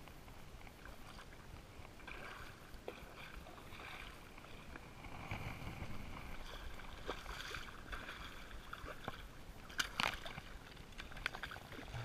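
Water splashing and sloshing beside a plastic kayak as a hooked redfish thrashes at the surface near the boat, with scattered small ticks and one sharp splash or knock about ten seconds in.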